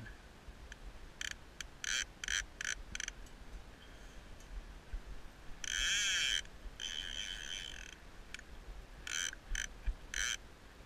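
Fly reel's click check rattling in short spurts as line moves on and off the spool, with a longer, louder buzz about six seconds in and another just after: a salmon being played on the rod.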